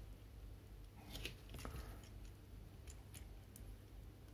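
A few faint, scattered clicks and taps of hard plastic parts: a Transformers robot toy being handled and moved through its transformation.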